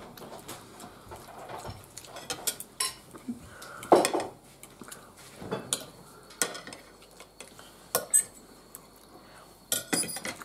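Cutlery clinking and scraping against a plate while eating, in scattered light clicks, with a louder knock about four seconds in and a quick run of clinks near the end.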